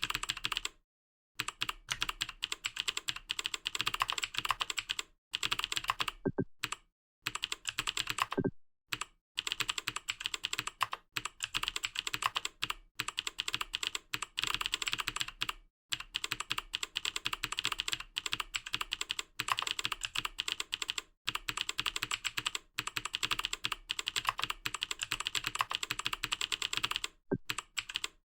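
Fast typing on a computer keyboard: rapid runs of key clicks, broken by several short pauses.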